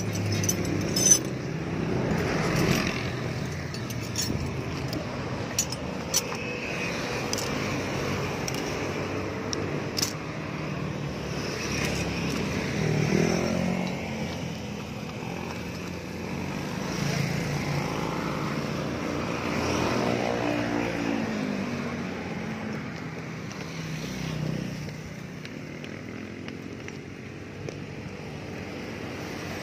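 Metal hand tools, wrenches and a lug wrench, clinking a few times in the first ten seconds as they are gathered up, while motor vehicles pass on the road, their engines swelling and fading.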